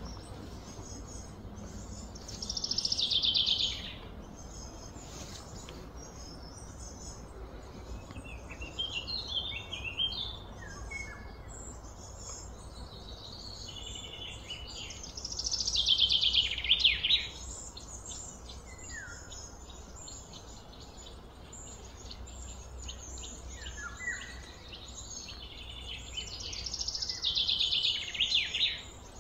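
Birds singing: three loud, high, falling trills about a second and a half long, roughly twelve seconds apart, with shorter chirps in between over a faint steady low hum.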